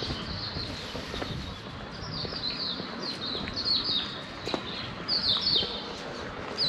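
A bird chirping in a quick series of short, high notes that fall in pitch, over a steady low hum of street noise.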